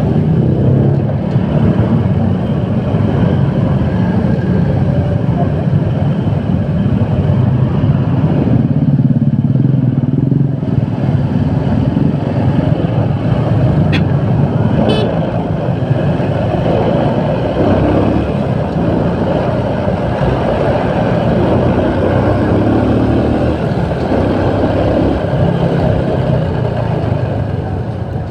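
Motorcycle engine running with road noise while riding through slow, dense city traffic, heard from the rider's own bike; a short sharp sound comes about halfway through.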